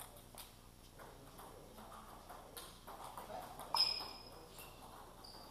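Table tennis ball clicking off bats and table in an irregular rally rhythm, with more knocks from other tables. The loudest is a sharp knock about four seconds in, with a short high tone after it.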